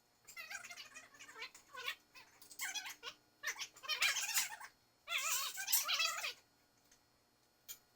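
Animal calls in a run of short bursts, each wavering up and down in pitch, stopping about six seconds in.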